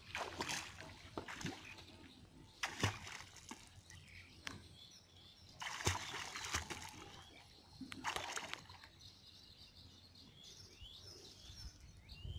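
Pond water splashing and sloshing in four short bursts as a person moves chest-deep through it working a net. Birds chirp near the end.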